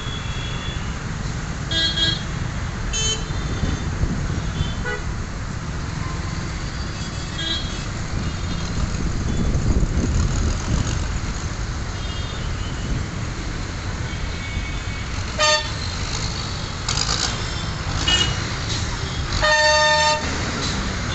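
Road traffic over a steady low rumble, with vehicle horns honking in short toots several times and a longer, louder honk near the end.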